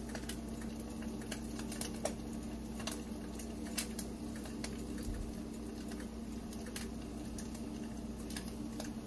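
An egg frying in oil in a pan: scattered small pops and crackles, a few each second, over a steady low hum.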